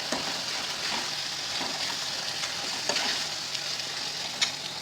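Onion-tomato biryani masala sizzling steadily in ghee in a pan as it is stirred, with a few light clicks of the stirring utensil against the pan.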